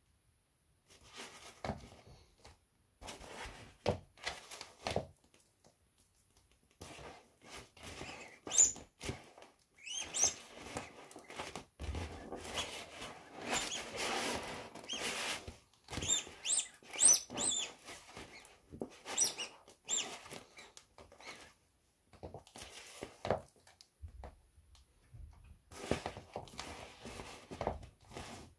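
Inflatable vinyl dolphin toy squeaking, creaking and rubbing as high-heeled sandals press down on and squash it, in irregular bursts with short high squeals and pauses between. Now and then a heel thuds on the floor.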